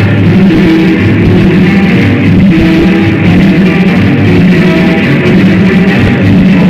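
Loud music with a repeating bass line, played over a sonidero sound system.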